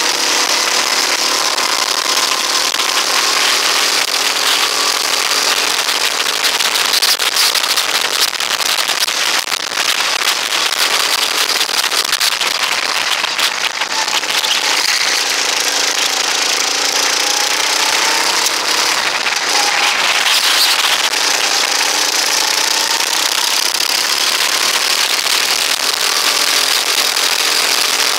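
Rental go-kart engine running hard under racing load, its pitch rising and falling as the kart speeds up and slows for corners, under heavy wind buffeting and crackle on the onboard microphone.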